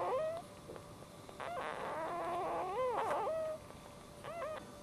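Newborn dachshund puppies squealing and whimpering. A long wavering cry comes in the middle, then two or three short squeaks near the end.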